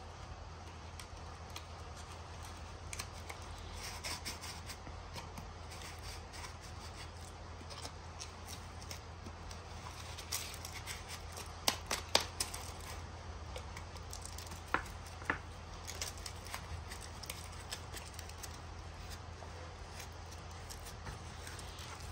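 Paper crinkling and rustling as hands twist and fold brown paper around a firework tube, with a cluster of sharp clicks about halfway through and two more a few seconds later. A low steady hum underneath.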